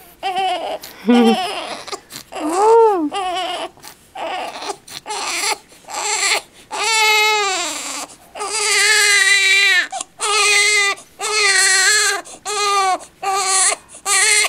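Infant crying: short whimpering cries at first, then long, repeated wails from about halfway in.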